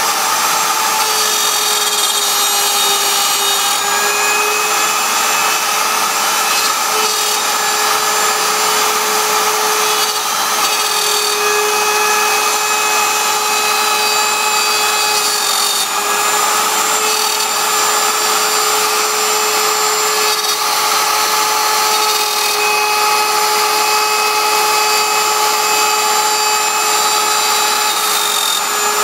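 CNC router spindle running with a steady, unbroken whine as its bit cuts through wood, with a continuous rough cutting noise beneath the tone.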